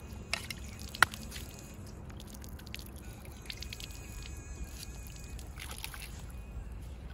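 Water pouring from a plastic jug, dripping and splashing over a hand-held fish into shallow water. A sharp click about a second in.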